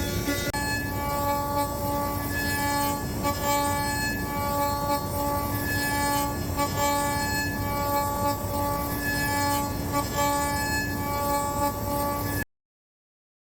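CNC router spindle running with a steady high-pitched whine of several tones, pulsing slightly as the cutter works through the wooden handlebar blank; it cuts off suddenly near the end.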